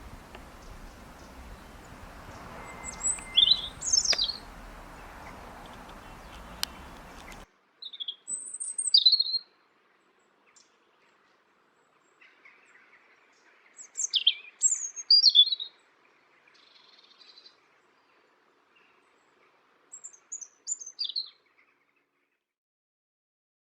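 Small songbird singing: short phrases of quick, high, sweeping chirps in four separate bursts with pauses between them. A steady background hiss under the first phrases stops abruptly about seven seconds in, as at a cut between recordings.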